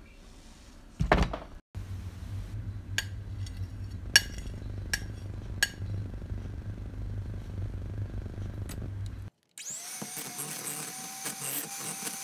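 Electric hand mixer working a cream cheese mixture in a bowl: a thump about a second in, then a low steady hum with sharp clicks as the beaters and a spoon knock against the bowl. After a brief break, the mixer runs again with a steady whine.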